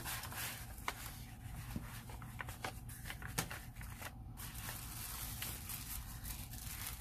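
Quiet rustling and crinkling of tissue paper and a manila envelope as a wrapped package is slid out and handled, with a few short sharp ticks from the paper.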